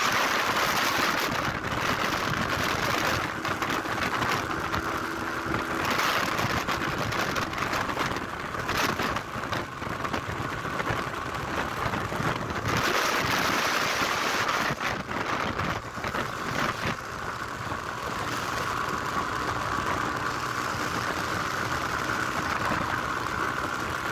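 Motorcycle on the move: a steady rush of wind and road noise with the engine faint beneath it, the hiss swelling and easing now and then.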